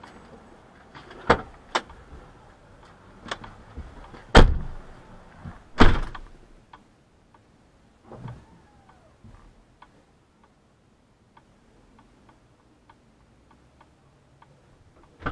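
A pickup truck's doors being shut: several knocks and thuds, the two loudest about four and six seconds in. Then faint, even ticking about twice a second, like a hazard-light relay.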